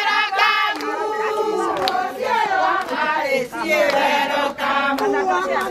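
A group of women singing together, many high voices overlapping in a lively hymn, with a few hand claps.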